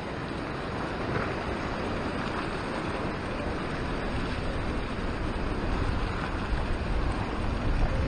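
Wind buffeting the microphone over the steady wash of ocean surf, with stronger gusts near the end.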